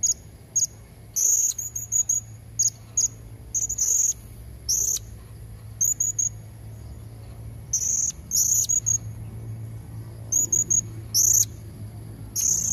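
Female blue-crowned hanging parrot (serindit) calling: sharp, very high-pitched chirps, some single and some in quick runs, repeated irregularly over a faint steady low hum. It is a lure call for drawing in wild males.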